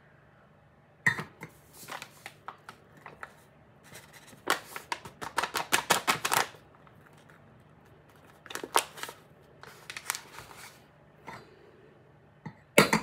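Handling noises while flour is measured: a flour bag rustling and knocking against a measuring cup, with scattered clicks. About halfway through there is a quick run of rapid rustling strokes as flour is shaken out of the bag, and a loud click near the end.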